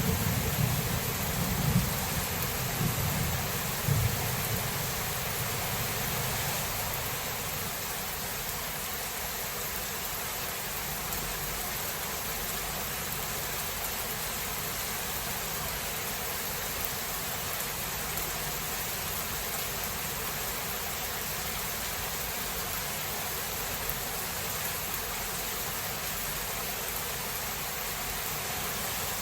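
Thunder rumbling and fading away over the first several seconds, over steady heavy rain; after that only the even hiss of the rain goes on.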